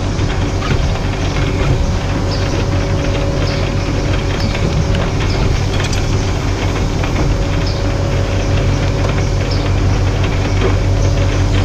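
Truck engine running steadily, a constant low hum with faint scattered ticks over it.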